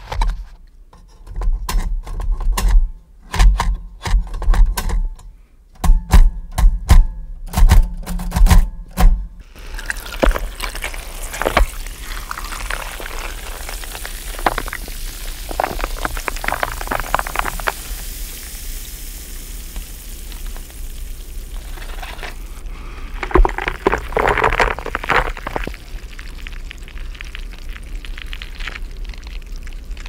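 Manual typewriter keys and typebars striking in quick clusters, with deep thuds, picked up by a magnetic contact microphone on the machine's metal frame. After about ten seconds this gives way to liquid poured from a plastic bottle into a glass, heard through a hydrophone: a steady hiss with two louder spells of pouring.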